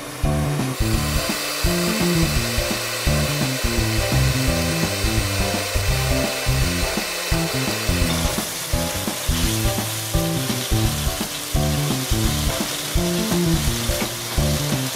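Gyoza sizzling as the steaming water boils off in an enamelled cast-iron frying pan, first under its lid and then uncovered, when the sizzle opens up about eight seconds in. Background music with low stepped notes plays throughout.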